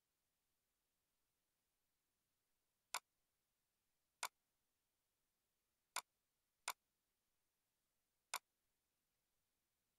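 Near silence broken by five short, sharp clicks at uneven intervals, two of them close together about two thirds of the way through.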